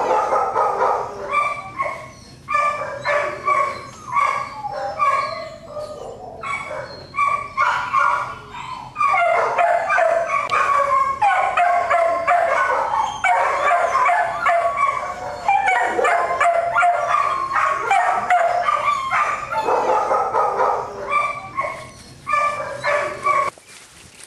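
Many shelter dogs barking, yipping and howling at once in kennel runs, a dense continuous din of overlapping calls that drops away abruptly near the end.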